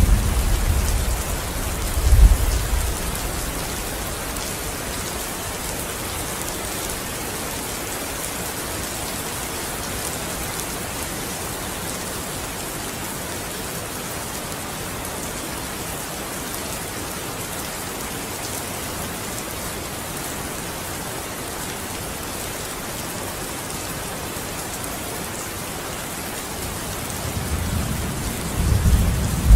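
Steady rain falling on a window, with low thunder rumbling and dying away in the first few seconds and another roll of thunder building near the end.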